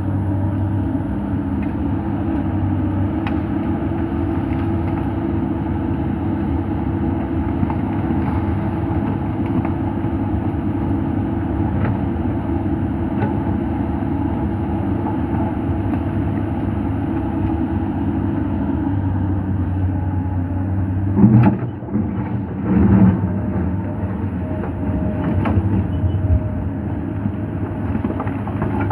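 Komatsu PC200 hydraulic excavator's diesel engine running steadily under working load, with two loud knocks about three-quarters of the way in.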